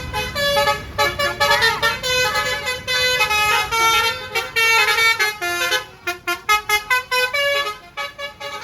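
Basuri multi-note bus air horn ('telolet') playing a fast tune of quickly changing notes. About six seconds in it breaks into a rapid string of short toots.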